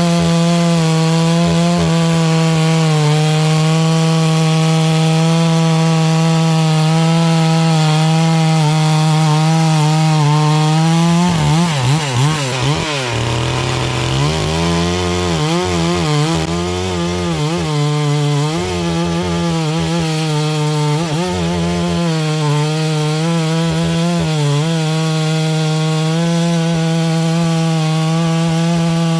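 Farmmac F380W two-stroke chainsaw, an MS 380 clone, running near full throttle while sawing through poplar. The engine note holds high and steady, then dips and swings about a third of the way in before settling back to speed.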